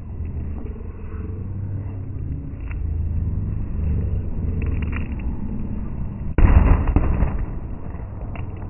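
Aerial fireworks going off over a large outdoor crowd: scattered pops and crackles over a steady low rumble, with one sudden loud bang about six seconds in that dies away within a second.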